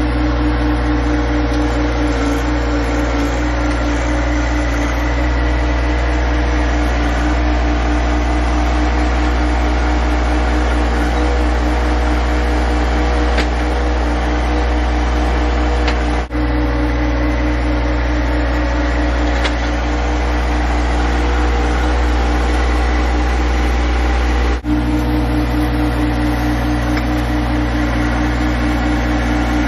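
John Deere 1025R compact tractor's three-cylinder diesel engine running steadily while its front loader digs into clay soil. The engine note holds an even pitch throughout and breaks off momentarily twice.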